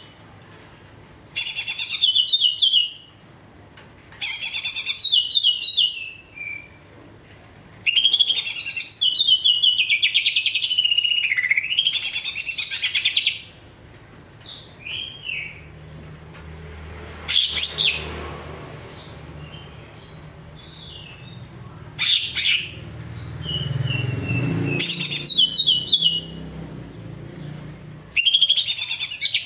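Male greater green leafbird (cucak ijo) singing in loud bursts of rapid, chattering high notes, each a second or two long with short pauses between, and one long run of about five seconds in the middle. This is the steady song used as a lure recording to set other cucak ijo singing.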